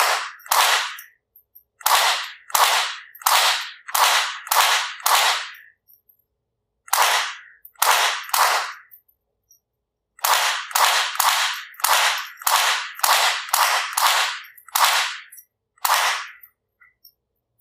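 Rossi RS22 semi-automatic .22 rimfire rifle firing a long string of about twenty shots from a 25-round magazine, one to two shots a second, with brief pauses about six seconds in and again around nine to ten seconds.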